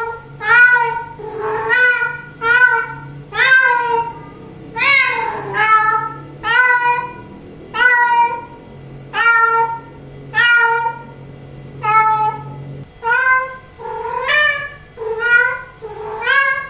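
Female cat giving a long series of short, loud meows, roughly one every two-thirds of a second: a queen's call for a tom.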